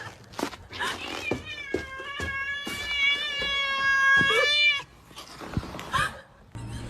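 A cat meowing: short calls, then one long drawn-out meow from about two seconds in to nearly five, with scattered clicks around it.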